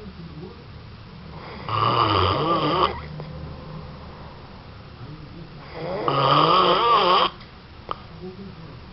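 A sleeping person snoring heavily: two long, loud snores about four seconds apart, each with a wavering, buzzing pitch, and quiet breathing between them.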